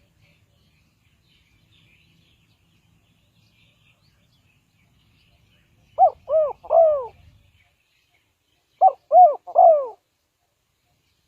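Spotted dove cooing: two three-note phrases about three seconds apart, each a short coo followed by two longer, falling coos.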